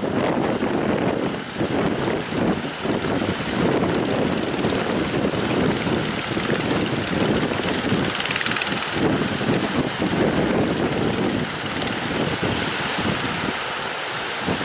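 Strong wind buffeting the microphone in irregular gusts, a loud rushing noise that rises and dips throughout.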